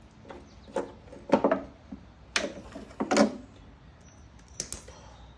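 A lawnmower carburetor being worked apart by hand: a few short creaking scrapes and knocks of the parts, with a couple of light clicks near the end.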